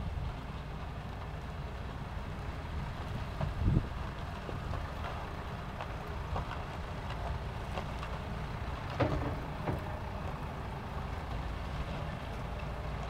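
Samart Kaset Yont Giant sugarcane harvester at work in standing cane: a steady engine drone under a crackling noise, with two louder thumps about four and nine seconds in.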